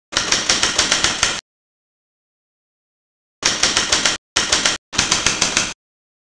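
Typewriter keystroke sound effect, one sharp key strike per letter: a run of about eight strikes, a pause of about two seconds, then three shorter runs with brief breaks between them.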